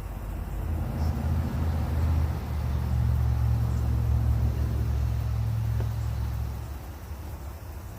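A low, steady engine-like rumble that swells about a second in and fades near the end.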